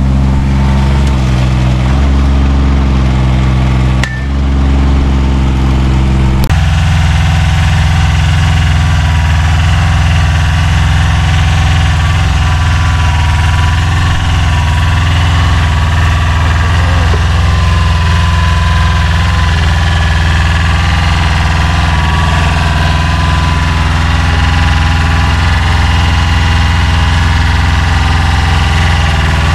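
Engines of small earthmoving machines running. A mini excavator's engine works with its note stepping up and down a few times. About six seconds in, the sound cuts to a steady engine run from a mini tracked skid-steer loader and the excavator.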